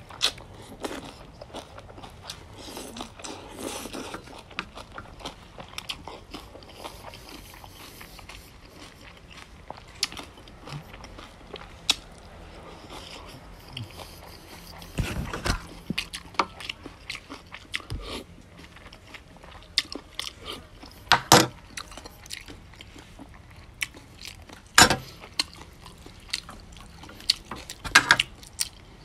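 Close-miked eating of goat noodle soup: slurping noodles, then chewing and smacking, with many small wet clicks. A few louder sharp clicks and knocks come in the second half.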